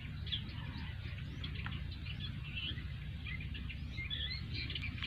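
Small birds chirping in short, scattered calls, with a steady low rumble underneath.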